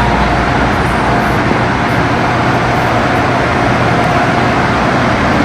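Steady running noise of a moving train heard from inside the carriage, with a faint steady whine above the rumble.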